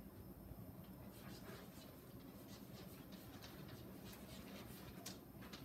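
Faint scratchy strokes of writing, short and irregular, against quiet room tone.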